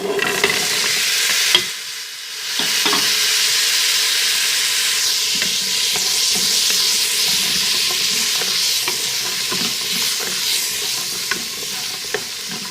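Onion and spices sizzling in oil in a cooking pot, with faint clicks and scrapes of a stirring spoon. The sizzle drops briefly about two seconds in, then carries on steadily.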